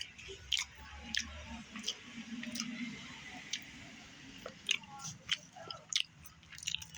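Close-up chewing of French fries dipped in ketchup, with scattered sharp, wet mouth clicks.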